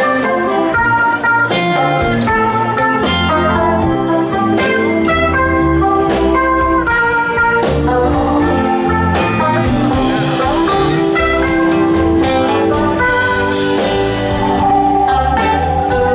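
Live rock band playing an instrumental passage with no vocals: electric guitars over electric bass and drum kit.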